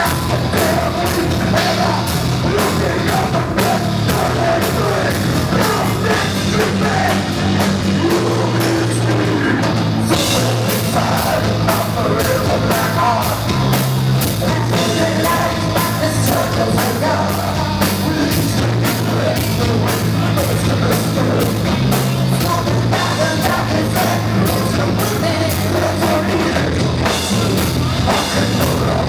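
A rock band playing loudly at a live show, with a drum kit keeping a fast, steady beat under the instruments and singing.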